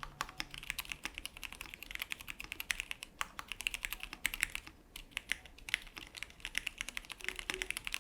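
Fast typing on a KBD67 Lite R2 mechanical keyboard with stock linear Cherry MX Black Hyperglide switches: a rapid, uneven stream of key clacks with brief pauses between bursts.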